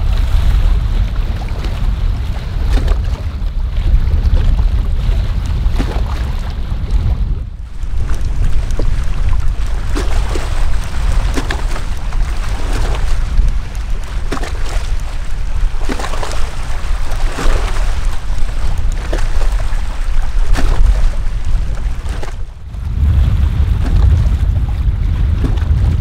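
Strong gusty wind buffeting a camera microphone with a heavy low rumble, over waves splashing against shoreline rocks. The sound changes abruptly twice, about 7 seconds in and near the end: the middle stretch has much less wind rumble and clearer wave splashes, as if a different microphone is heard.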